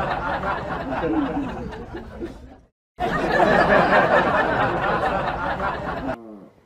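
Many people laughing and chattering together. It stops dead for a moment about two and a half seconds in, then the same stretch starts over and fades out near the end.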